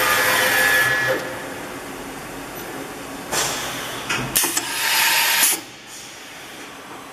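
Dahlih MCV 1020 BA CNC vertical machining centre raising its spindle head, a whining machine sound that stops about a second in. Two loud bursts of hissing air follow, about three and four-and-a-half seconds in, then the machine settles to a steady hum.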